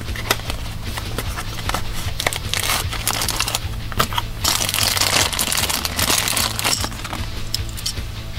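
Thin clear plastic bag crinkling and rustling as a small die-cast toy truck is unwrapped from it, loudest in the middle, over steady background music.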